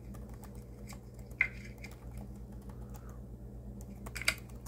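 Quiet, irregular tapping of typing on a keyboard, with two sharper clicks, one about a second and a half in and one near the end.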